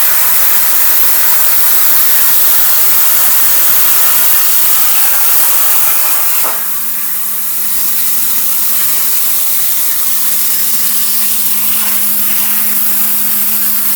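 ArcDroid plasma torch cutting quarter-inch steel with a loud, steady hiss. About six and a half seconds in, the arc shuts off with a click, leaving quieter air hiss and a steady low hum.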